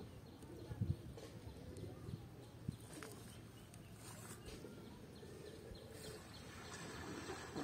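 Faint outdoor ambience with birds calling in the background, and a few soft rustles and light clicks from a cast net being picked through by hand.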